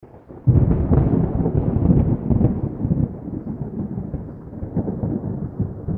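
A loud, low, rough rumble that comes in suddenly about half a second in and slowly fades over the next few seconds.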